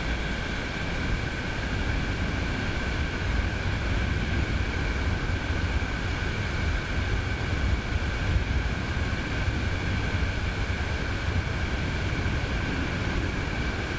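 Wind buffeting the microphone, a steady rumble over a hiss, with a faint steady two-note whine running under it.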